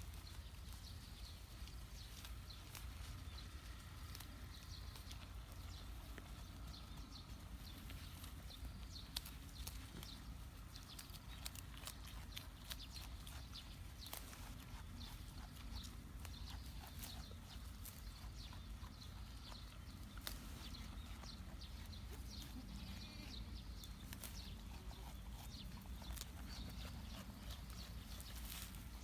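A week-old kid goat moving about, heard as faint scattered small clicks and rustles over a low steady rumble.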